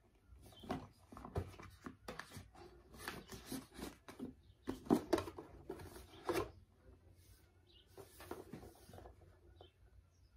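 Cardboard box and packaging being handled as a white router is opened and lifted out: irregular rubbing, scraping and small knocks, busiest in the first six seconds or so and fainter after.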